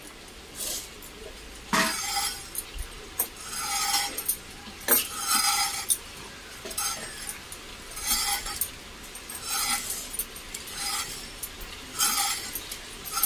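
Snake gourd being sliced on a fixed floor blade (paniki), a short crisp cut about once a second, irregularly spaced. Light clinks of glass bangles come with the strokes.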